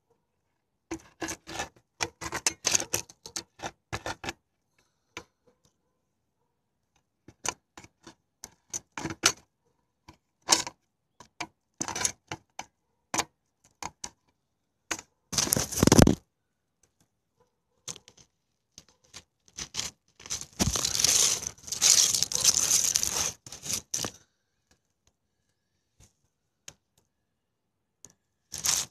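Handling noise: rubbing, scraping and clicking against the recording device's microphone in irregular bursts, with two longer rustles, one about halfway through and a longer one from about two-thirds of the way in.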